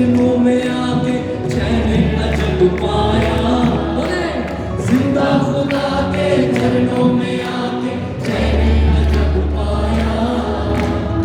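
Worship music: voices singing over a band, with deep bass notes held for a couple of seconds at a time.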